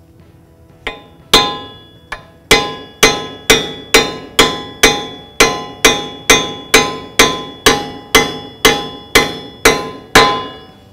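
Hammer striking the steel lower control arm of a 2012 Ford Escape, each blow ringing metallically. A few scattered strikes come first, then a steady run of about two a second, tapping the arm up so the lower ball joint stud lines up in the knuckle for its pinch bolt.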